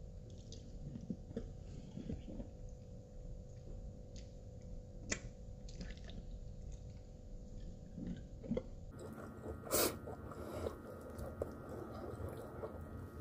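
Close-miked mouth sounds of eating fried chicken: chewing, lip smacks and small wet clicks over a steady low hum, with one louder crackle about ten seconds in.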